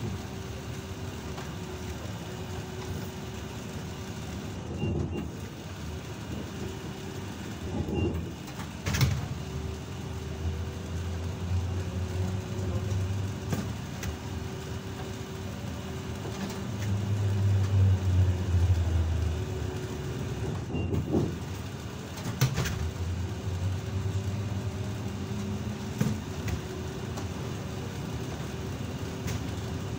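ZiU-682G trolleybus on the move: a steady electrical hum over the low rumble of the running gear, which swells several times, loudest about halfway through, with faint rising whines as it picks up speed. Several sharp knocks and clacks punctuate it.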